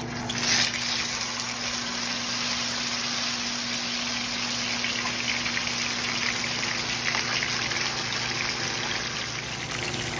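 Milkfish (bangus) frying in hot oil in a nonstick pan. A sudden loud sizzle about half a second in, as the fish goes into the oil, then steady sizzling and spitting of the oil.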